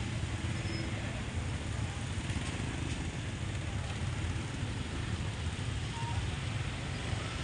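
Several motor scooters and a small truck running slowly at walking pace: a steady low engine hum.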